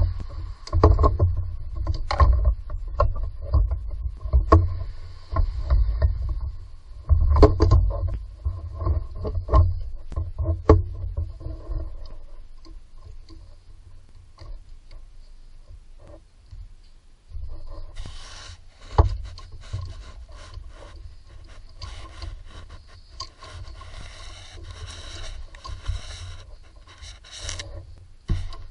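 Hands working among parts in a car engine bay: scraping, rubbing and irregular knocks over low rumbling handling noise, heaviest in the first dozen seconds. From about two-thirds of the way in, the sound turns to denser scraping and rustling with many small clicks, and one sharp knock stands out just before that.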